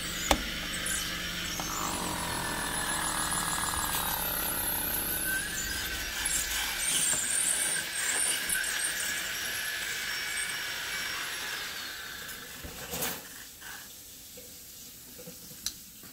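High squealing and scraping from a metal tool prying and dragging along a window frame and its termite-damaged wood, with wavering pitch, going quieter for the last few seconds.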